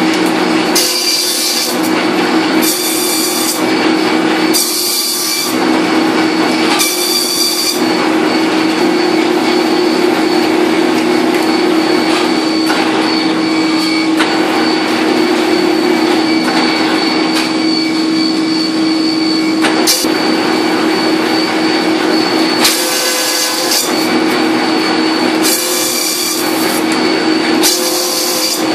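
MBZS-2A bamboo satay-skewer making machine running: a steady motor hum, with louder noisy stretches as bamboo is worked, about every two seconds for the first eight seconds and again near the end.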